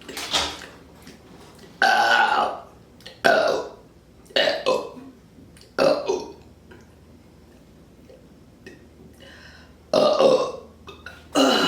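A woman burping on command after chugging ginger ale: about five loud belches in a row, a little over a second apart, then a pause of about three seconds before two more.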